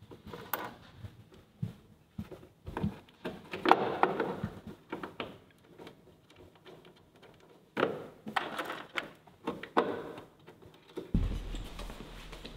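Hands fitting and fastening parts in a car's engine bay: scattered clicks, taps and light rattles of plastic and metal parts and hoses being handled. About a second before the end, a steady low hum sets in.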